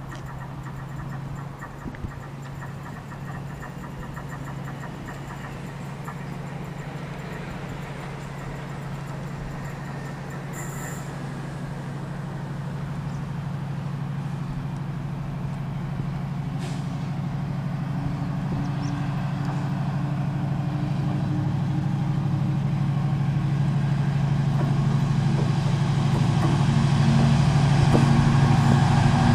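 Freightliner Class 70 diesel locomotive's GE PowerHaul V16 engine approaching under power, its low, steady engine note growing louder throughout as it nears.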